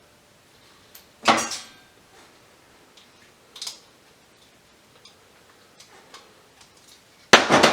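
Metal light-fixture parts clanking as they are handled and dropped during dismantling: a loud clatter about a second in, a small clink in the middle, and a longer, louder clatter near the end.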